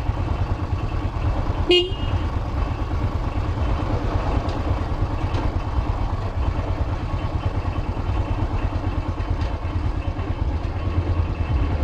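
Yamaha YBR125's single-cylinder engine running steadily under way, with wind rumble on the microphone. A short horn toot sounds about two seconds in.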